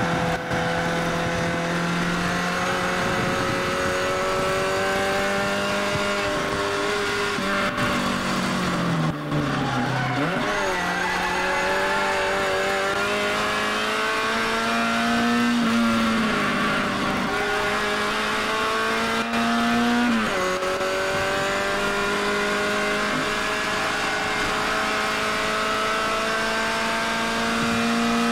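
Mini race car's engine heard from inside the cabin at racing speed, its pitch climbing steadily through each gear. The revs dip sharply and recover about a third of the way in, and fall abruptly at gear changes a little past halfway and again about two-thirds through.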